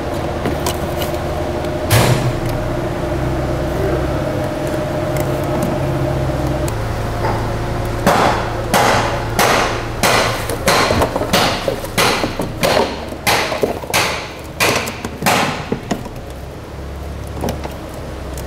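A steady background hum, with one sharp knock about two seconds in, then a run of about a dozen sharp knocks evenly spaced roughly every half second, stopping about three seconds before the end.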